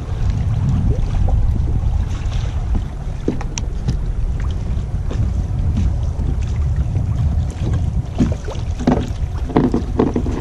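Wind buffeting the microphone as a steady low rumble, with water lapping against a kayak hull and scattered small knocks, which come thicker near the end.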